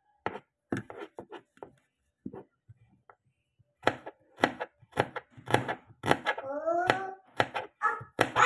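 Small knife slicing shallots on a plastic cutting board: a run of quick, uneven knocks, sparse at first and then fast and dense about four seconds in. A short call that bends up and down in pitch cuts in over the chopping near the end.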